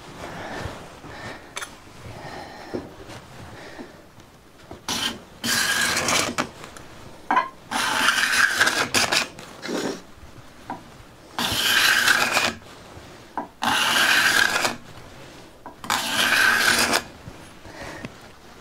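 Freshly sharpened steel card scraper drawn across a wooden board: five scraping strokes of about a second each, starting about five seconds in, two to three seconds apart. Before them come quieter handling sounds.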